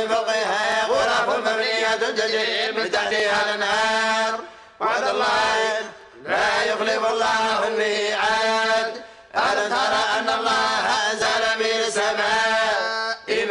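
Group of voices reciting the Quran together in unison, in a slow chant with long held notes and three short pauses for breath.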